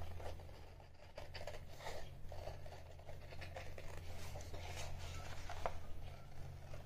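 Scissors cutting a sheet of paper along a curve: irregular short snips and paper rustling, with a steady low hum underneath.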